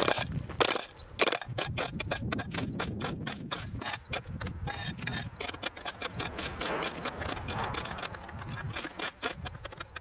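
A steel hoe scraping loose asphalt chunks and grit out of a narrow trench cut in asphalt: a quick, uneven run of gritty scrapes and clinks, with a few sharper knocks in the first second or so.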